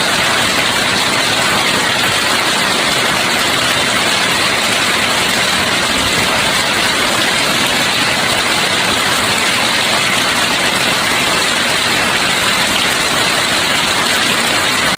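Heavy hail falling in a dense, steady clatter that does not let up.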